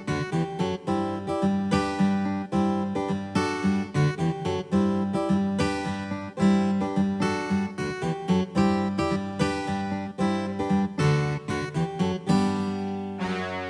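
Yamaha PSR-E373 keyboard playing a strummed guitar voice in a quick, even rhythm of chords over a held bass note. Near the end a brighter, different voice comes in.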